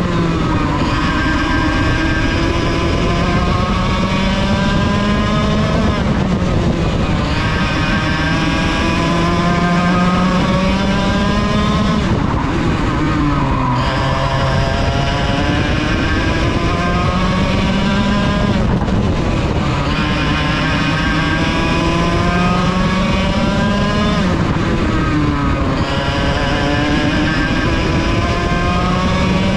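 Racing kart's 100cc two-stroke engine heard from on board, climbing steadily in pitch under full throttle and then dropping away when the throttle comes off for a corner, four times.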